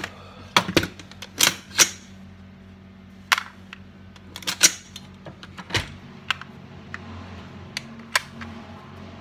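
AR-15 rifle being handled by hand, its magazine taken out and its sling hardware worked: a dozen or so irregular sharp clicks and clacks of metal and polymer parts, over a faint steady low hum.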